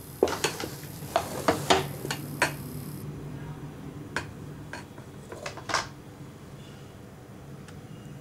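A spoon clinking and knocking against a bowl: a quick cluster of sharp strikes over the first two and a half seconds, then a few more between about four and six seconds in.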